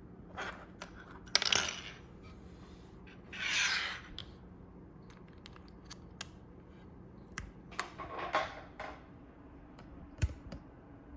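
Scattered light clicks and taps, with three short scraping or rubbing sounds about a second and a half, three and a half and eight seconds in.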